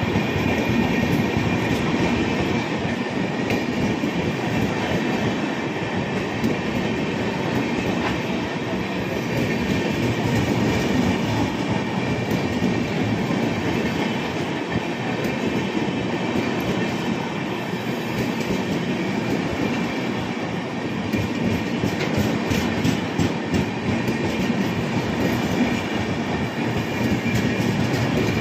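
Coaches of the Bikaner–Sealdah Duronto Express running through a station platform without stopping: a steady rumble and rush of wheels on rail as car after car goes by.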